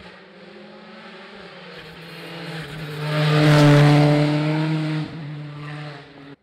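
Rally car approaching at speed and passing by, its engine growing louder and loudest about three to four seconds in. The level drops suddenly about five seconds in and the engine goes on more quietly before the sound cuts off at the end.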